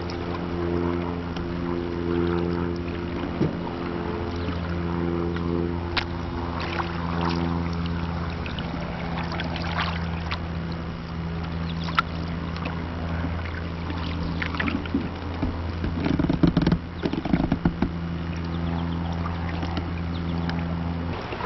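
Canoe being paddled on calm water: a wooden paddle dipping and dripping, with a few sharp knocks and a louder cluster of splashes and clunks about three quarters of the way through. A steady low hum runs underneath.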